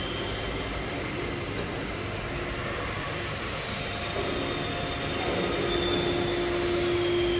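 CNC stone engraving machine running: a steady mechanical noise with a steady hum that grows stronger and slightly louder about five seconds in.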